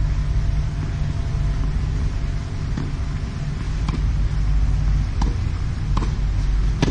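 Steady low rumble in the background, with a few sharp ball taps on the clay. Near the end comes a louder crack as a racket strikes a tennis ball on the serve.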